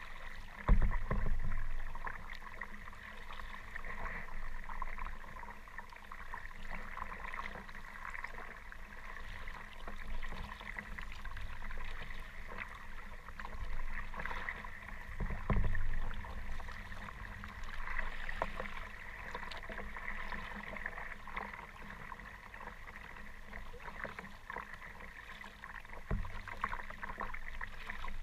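Kayak being paddled through choppy water: continuous splashing and sloshing of water around the paddle and hull. Three dull thumps come about a second in, about halfway through and near the end.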